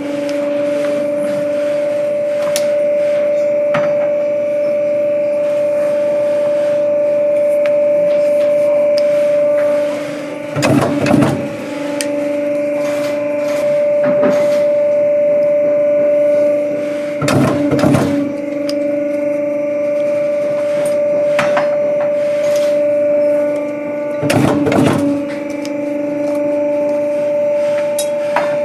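Swing-arm clicker press cutting leather with a steel die: its motor hums steadily, and three times, about every six to seven seconds, the head comes down on the die with a short cluster of heavy knocks. A few lighter clicks come between the strokes as the die and hide are moved about.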